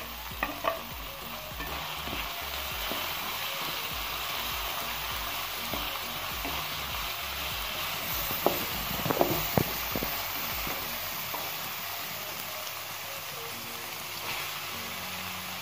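Chopped vegetables sizzling in hot oil in a metal wok as they are stir-fried with a spatula, with a few sharp clicks of the spatula against the pan about halfway through.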